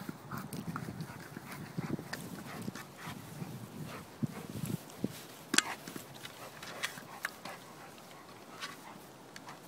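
A Rottweiler making low growls and grunts as it plays with a toy ball, with scattered sharp clicks and knocks.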